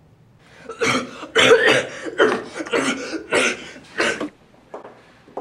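A person coughing hard, about six coughs in quick succession, stopping about four seconds in.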